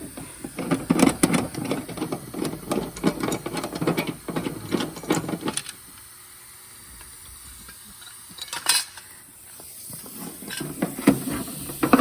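Quick runs of metal clinks and scrapes from a hand tool working on sheet metal, with a pause of a few seconds in the middle broken by one louder scrape.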